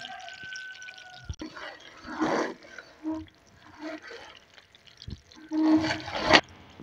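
A spoon stirring and scraping around a kadhai of bubbling sugar syrup and ghee as it cooks toward golden, in a few short scrapes, the loudest near the end. A faint steady whistle-like tone sounds during the first second or so.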